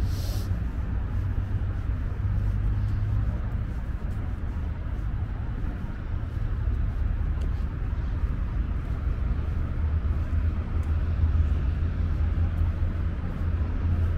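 Outdoor city ambience: a steady low rumble of distant road traffic.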